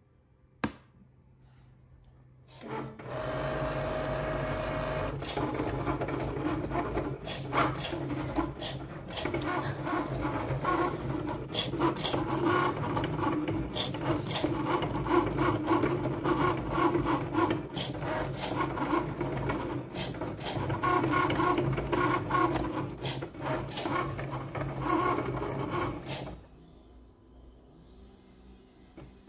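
Cricut Maker cutting machine running a cut: its motors whir and hum steadily as the blade carriage and mat shuttle back and forth, with many small clicks, starting about three seconds in and stopping abruptly a few seconds before the end. A single click comes just before it.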